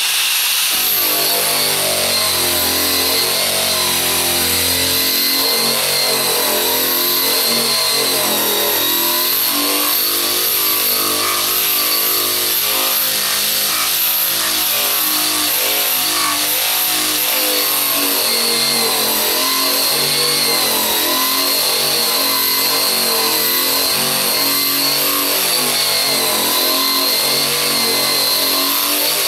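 Eastwood Contour SCT surface conditioning tool running at full speed, its abrasive drum grinding paint off a car's steel trunk lid. The motor's steady whine wavers in pitch as the drum is pressed and moved over the panel.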